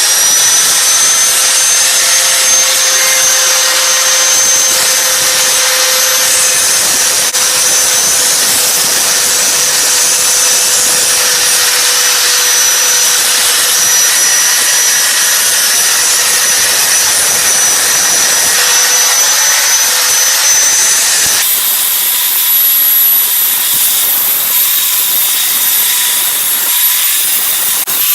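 Angle grinder running at full speed and grinding the steel point of a kitchen knife down, a loud, steady whine over the rasp of metal being ground away. About 21 seconds in the sound changes abruptly and the whine shifts higher.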